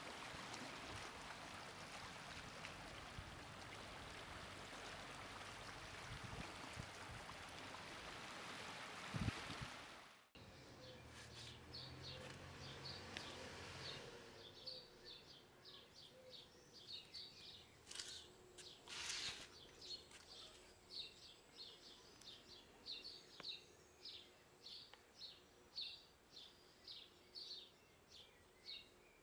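A faint, steady hiss that cuts off abruptly about ten seconds in. Then a small bird calls a short, high chirp over and over, roughly two a second.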